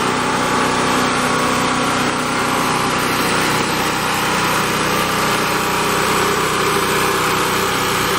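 Champion 3500-watt portable generator's 196cc engine running steadily, freshly started after sitting unused for about two months.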